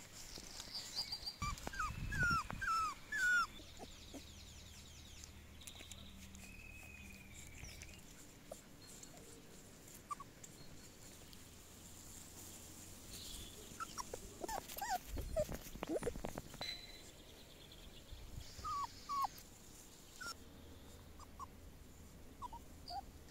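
Border collie puppies giving short high squeaks and whimpers, a few at a time, in several scattered clusters.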